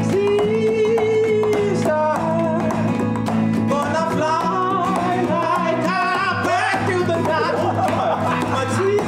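A man singing with a wide, wavering vibrato over a strummed acoustic guitar, holding long notes.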